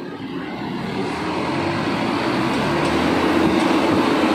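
Farana pick-and-carry crane's diesel engine running hard under load while the hydraulic boom holds and moves a heavy press machine, a steady mechanical drone that grows louder about a second in.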